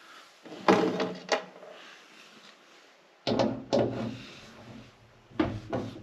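Hand tools being handled and knocked together as a screwdriver is picked up, heard as short clattering knocks in three bunches: about a second in, about three and a half seconds in, and near the end.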